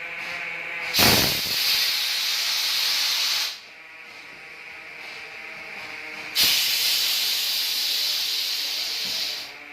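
Compressed air hissing from a pneumatic tyre changer in two bursts of about two and a half and three seconds, each starting suddenly with a low thump and cutting off sharply, as its air-powered bead breaker is worked.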